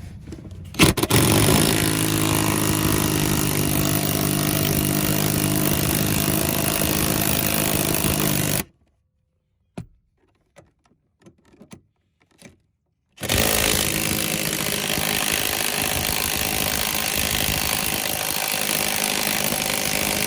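A handheld power tool running steadily for about eight seconds, stopping with a few small clicks in the pause, then starting again about four seconds later and running on.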